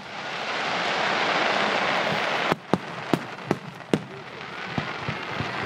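Fireworks display: a dense crackling hiss swells for about two and a half seconds and stops abruptly, followed by five or so sharp bangs of shells bursting.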